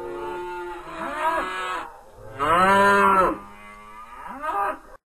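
Cattle mooing: several drawn-out moos, the loudest about halfway through and a short one near the end, then the sound stops abruptly.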